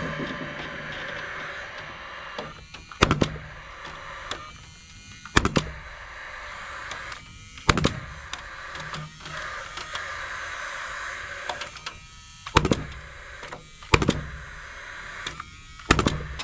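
A series of sharp knocks, about six, spaced roughly two seconds apart and a few of them doubled, over a steady mechanical hum.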